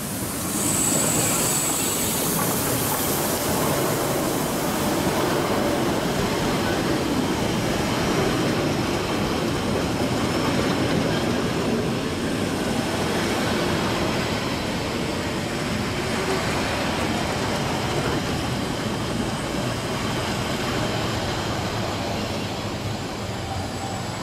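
Harz narrow-gauge steam locomotive 99 236, a class 99.23–24 2-10-2 tank engine on metre-gauge track, passing close by with a loud hiss in the first few seconds. Its train of coaches then rolls steadily past on the rails.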